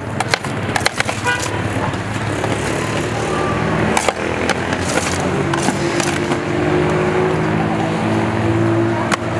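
Sheer yakh being churned by hand: a spatula scrapes and knocks against the inside of a metal pot set in crushed ice, over a steady grinding noise, with sharp scraping clicks near the start. A low humming tone joins about halfway through and runs until near the end.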